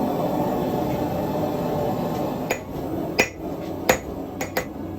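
A steady rumble, then from about halfway through a hammer striking metal on an anvil, about five ringing blows.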